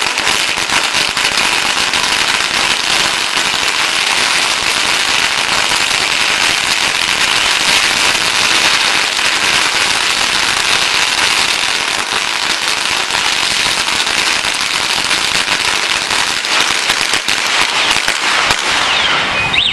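A long string of Chinese firecrackers going off in a rapid, continuous crackle of bangs, which stops just before the end.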